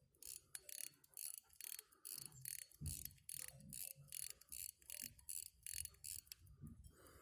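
FHF pocket watch movement running after being started, ticking evenly and quickly, with a few soft handling bumps.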